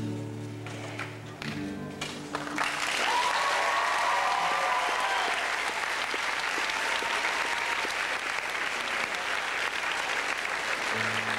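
Steel-string acoustic guitar plays the last notes of a song. About two and a half seconds in, the audience breaks into applause and cheering with whoops, which carries on. A low guitar note sounds again near the end.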